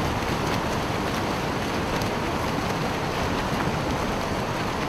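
Ocean surf: a steady, even wash of waves and water noise.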